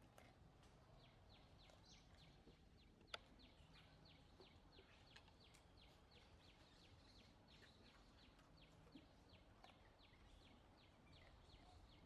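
Near silence with a faint, even series of short high chirps, about four a second, from a small animal, and one sharp click about three seconds in.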